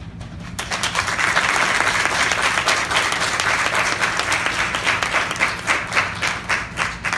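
Audience applauding. The applause swells within the first second and thins to scattered separate claps near the end.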